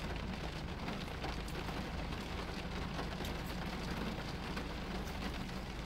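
Steady rushing noise with a low hum inside a car's cabin, with a few faint ticks.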